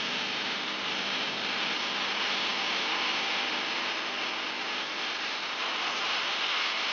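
Meat sizzling steadily as it cooks over the heat.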